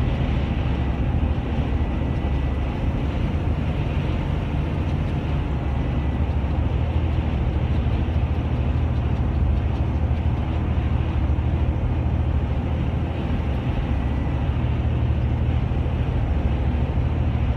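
Steady low rumble of road and engine noise inside a vehicle cruising at highway speed.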